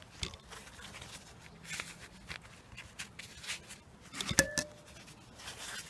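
Tools and metal engine parts being handled during a motorcycle engine strip-down: scattered light clicks and scrapes, then a quick cluster of sharp metal knocks about four seconds in, one of them ringing briefly.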